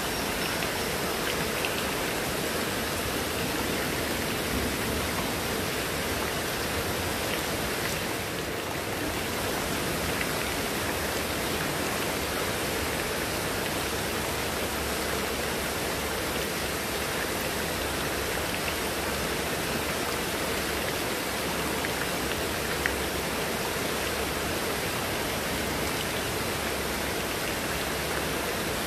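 Heavy, steady downpour: rain falling on leaves and hard surfaces, with water streaming off a roof edge.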